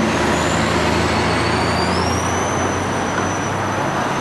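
A city bus passing close by: engine hum and road noise, with a high whine that rises in pitch about halfway through.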